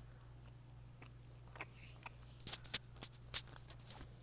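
Wet, sticky clicks and smacks of sauced chicken wings being handled and eaten close to the microphone, with most of the sharp clicks coming from about two and a half to four seconds in.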